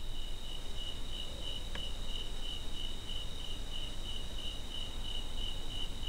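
Crickets chirping in an even, steady pulse.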